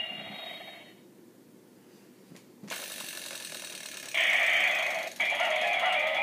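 Gaburevolver henshin toy: its electronic sound fades through a small speaker, then come a couple of plastic clicks and mechanism noise from the cylinder being worked. About four seconds in, the toy's loud electronic transformation sound and music start through its tinny speaker.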